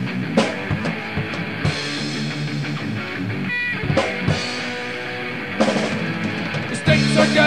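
Instrumental stretch of a punk rock song from a 1995 demo tape: distorted electric guitars and a drum kit, with a few sharp drum hits. The band comes in louder and fuller about seven seconds in.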